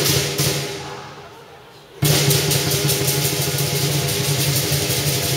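Lion dance percussion: a large lion drum beaten with cymbals clashing and ringing. The playing rings down to a lull, then comes back in suddenly about two seconds in with a quick, steady beat.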